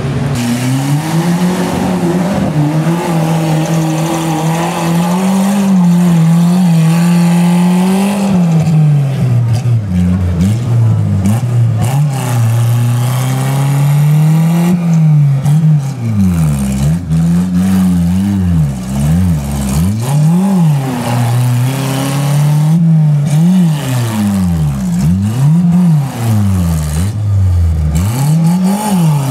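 Suzuki Samurai off-road 4x4 engine working hard under load in deep mud. The revs are held high for the first half, then rise and fall sharply over and over, about once a second, as the throttle is blipped to keep the wheels driving.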